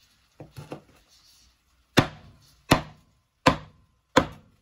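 Knife chopping through a vegan BBQ (mock) duck: two light taps about half a second in, then four sharp, even chops about 0.7 s apart.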